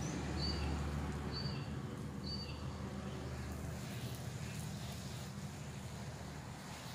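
Garden hose spraying water with a steady hiss, while a bird repeats a short high chirp about once a second through the first half. A low rumble underneath fades out about halfway.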